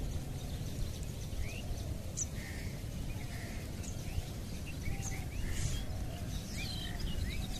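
Small birds chirping now and then, short calls and quick sliding notes, over a steady low outdoor rumble.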